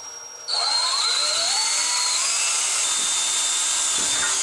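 Electric drill running at speed for about four seconds, starting about half a second in and cutting off at the end, drilling through the aluminum shower-door header and jamb for a locking pin. Its whine rises in pitch early on.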